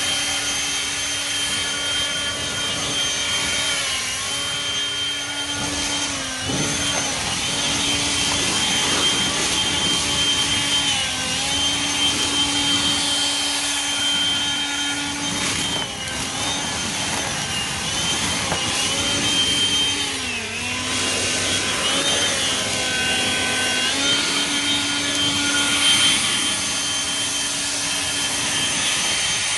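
Hart 40-volt brushless turbo fan blower running hard, a steady whine of motor and rushing air. Its pitch dips briefly several times as the motor slows, then picks up again.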